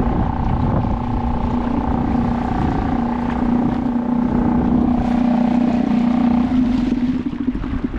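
A boat motor running steadily with a constant whining hum, over wind and water noise. The hum stops shortly before the end.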